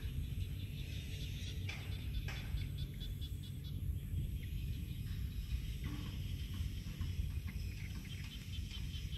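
Outdoor field ambience: a steady low rumble with insects and birds chirping, and a rapid ticking trill in the first few seconds.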